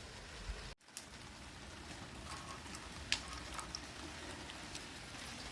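Steady rain falling, with scattered drops ticking. The sound cuts out for a moment just before one second in.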